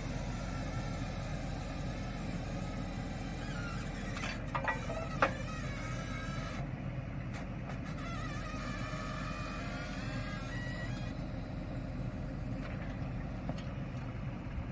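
Case Maxxum 140 tractor engine running steadily, with a sharp knock about five seconds in.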